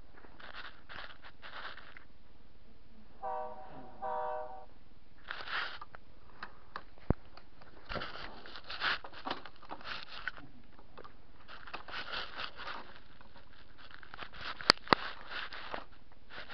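Toy Caterpillar locomotive sounding two short horn honks about three seconds in, followed by irregular scraping and rustling on carpet as the camera is bumped and moved, with a few sharp clicks, two of them close together near the end.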